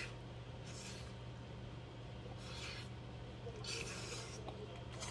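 A person slurping black-bean instant noodles from a pot, four short slurps a second or so apart, over a steady low hum.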